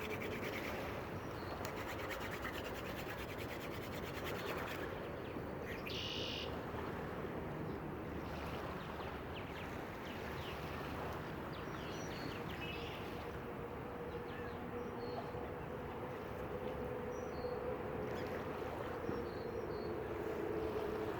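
Wooden hand drill spindle spun between the palms in a hearth board, giving a steady friction rubbing of wood on wood while trying for an ember. A few faint bird chirps sound over it.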